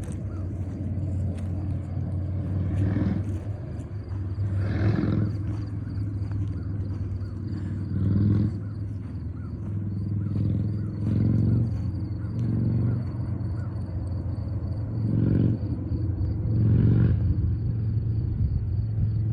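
Wind rumbling on the microphone outdoors, swelling in stronger gusts every few seconds.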